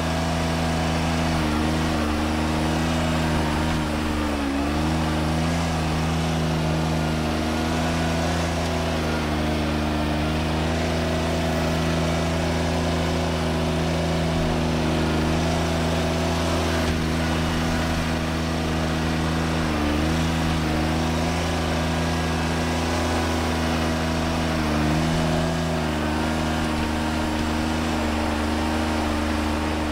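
John Deere 755 compact tractor's three-cylinder diesel running steadily at working speed, with a few brief dips in pitch as the engine takes load.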